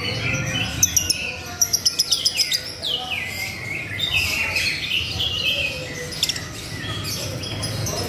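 Caged red-faced lovebird chattering: a continuous run of sharp chirps and quick falling twitters, busiest about a second in and again from about three seconds.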